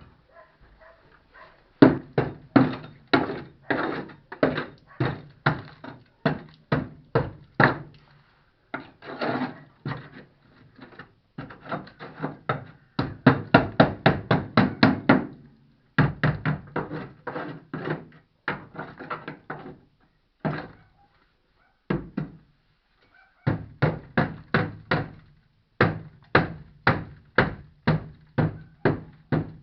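Moskvich 2141's starter cranking the engine in several long attempts, a fast even beat of compression strokes over the starter's hum, without the engine catching. The repeated cranking is running the battery down.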